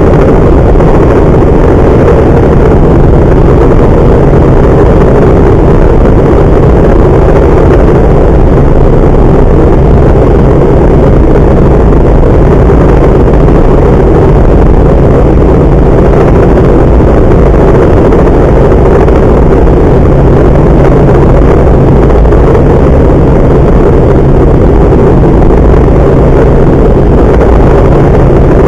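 Robinson R44 helicopter in cruise flight heard from inside the cabin: the piston engine and rotors make a loud, steady drone with a low hum that does not change.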